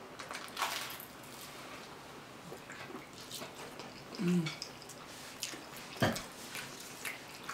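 Close-up wet mouth sounds of people eating spaghetti: soft chewing, slurping and lip smacks. A short voiced 'mm' comes about four seconds in, and a single sharp click about six seconds in.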